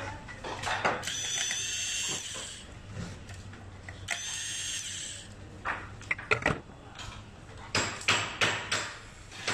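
Small electric screwdriver whining in two runs, about a second and a half and then about a second long, backing out the screws that hold the camera module inside a PTZ speed dome camera. It is followed by a string of sharp clicks and knocks as the plastic camera block is handled loose.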